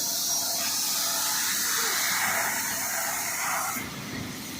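Heavy-duty wide belt sander running, a steady loud hiss. The high part of the hiss drops away for about a second near the end.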